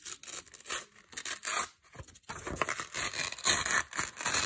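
Brown paper torn slowly by hand: a run of short, irregular rips and crackles that come thicker and louder from about halfway.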